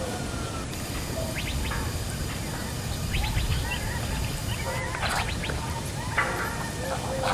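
Birds calling with short repeated chirps, over a steady low rumble, with a few sharp clicks.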